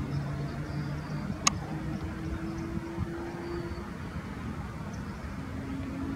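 Steady low outdoor rumble carrying a faint engine-like hum that shifts in pitch, with a single sharp click about a second and a half in.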